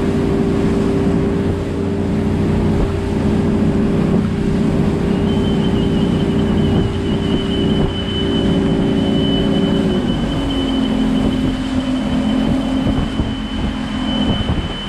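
A 20-foot Wellcraft center console boat's engine running steadily under way, with wind and water noise; about ten seconds in the engine note drops lower as the throttle comes back. A thin steady high whine joins about five seconds in.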